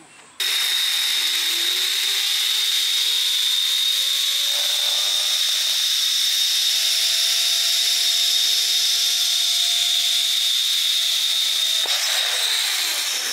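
Zip line trolley pulleys whirring along the steel cable at speed. The sound is a loud, steady, high whine that starts suddenly, and a lower tone climbs slowly as the rider picks up speed, then drops again near the end.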